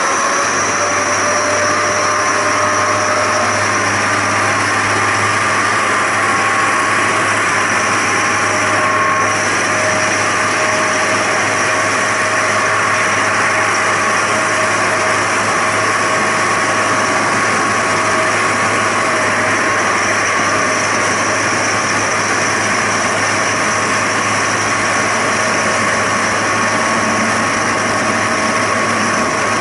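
Diesel railcar of the narrow-gauge Zillertalbahn running along the line: a steady engine drone over running noise. The engine's tone rises a little in pitch over the first few seconds, then holds steady.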